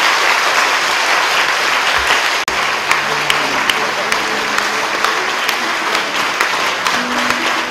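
Congregation and choir applauding, a dense, steady clapping from many hands, with a momentary break about two and a half seconds in.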